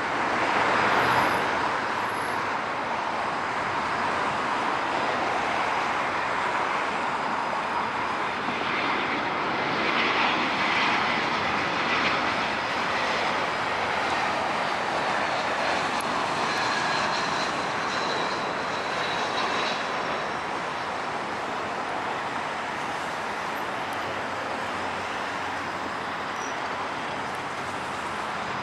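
Airbus A320-200 airliner's IAE V2500 turbofan engines during a landing: a steady jet rush with a faint high whine, loudest about a second in and easing slightly toward the end.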